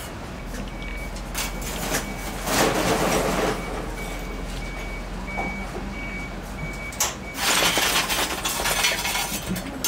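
An electronic beeper sounding a steady string of short, high beeps that stops about seven seconds in. Two bursts of rushing noise come through, one a few seconds in and a longer one near the end.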